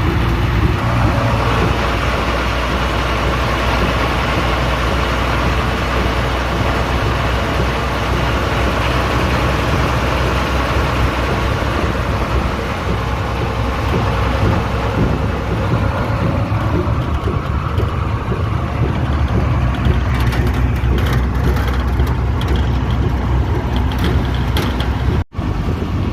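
Hino diesel truck running steadily on the move, a low engine drone with road and body noise. Over the last several seconds a series of short clicks and rattles joins in, and the sound drops out for an instant near the end.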